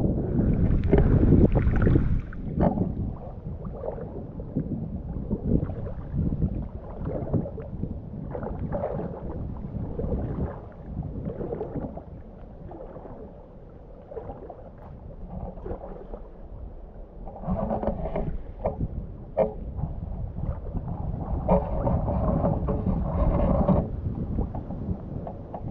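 Water sloshing and splashing around rubber waders as someone wades through thigh-deep river water, in irregular swishes that ease off for a few seconds midway and pick up again, with a low rumble of wind on the microphone.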